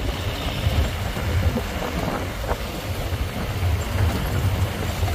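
Open safari canter truck driving along: a steady low rumble of engine, tyres and wind.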